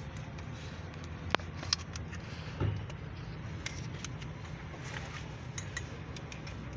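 A steady low hum with a few sharp, scattered clicks and a single duller knock a little under three seconds in.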